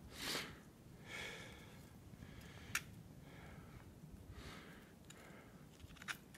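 A person's soft breaths, about five slow exhales, with a couple of faint clicks.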